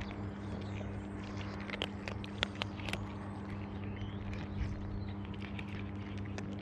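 Cats crunching dry kibble: a run of short, crisp clicks, a few louder ones near the middle, over a steady low hum.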